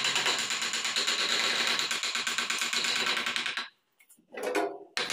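Rapid, even taps of a mallet driving a wood-carving chisel into a wooden door frame, about ten a second. The tapping cuts off suddenly about three and a half seconds in, and a short separate sound follows after a brief gap.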